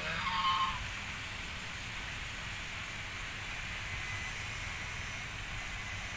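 A domestic goose gives a short honking call at the start, followed by a steady background hiss with a low rumble.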